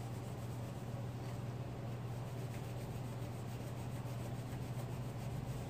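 Faint scratchy rubbing of a rusty fishing hook scrubbed against a Scotch-Brite scouring pad to clean off the rust, over a steady low hum.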